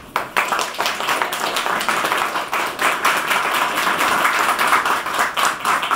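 Audience applause: many people clapping together, starting suddenly and stopping near the end.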